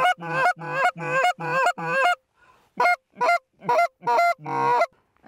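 Geese honking close by: a run of five loud honks, a short pause about two seconds in, then about five more, the last one drawn out.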